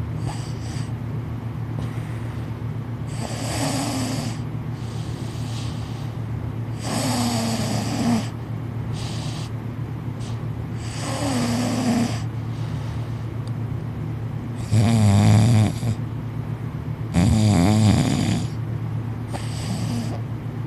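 Loud snoring: six snores about every three to four seconds, the two in the second half loudest and rattling, over a steady low hum.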